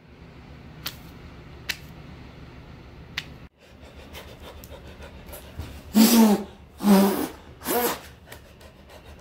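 A man's loud breathy gasps, three of them about a second apart in the second half. Before them there are only a few faint clicks over a low steady hum.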